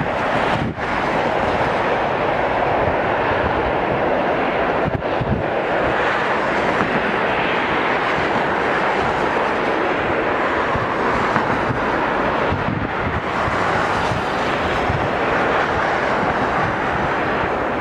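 Boeing 787-9's GEnx-1B turbofans on final approach: steady distant jet noise, with wind buffeting the microphone.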